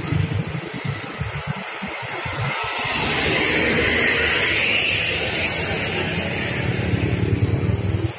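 Road traffic: cars and motorcycles running, with a vehicle passing close from about three seconds in, its engine and tyre noise swelling, then easing off slowly.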